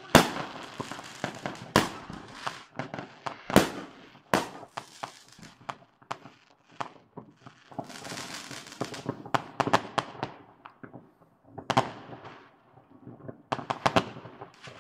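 Fireworks going off: a string of sharp bangs from aerial rockets and firecrackers, the loudest right at the start. A spell of dense crackling comes about eight seconds in, and a quick run of bangs near the end.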